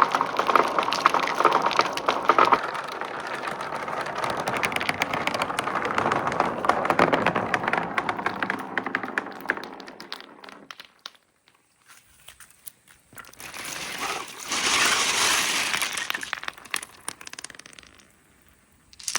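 Many glass marbles rolling and clattering down slope tracks: a dense run of clicks and rattling that thins to scattered clicks about ten seconds in, then a second rush of rattling a few seconds later.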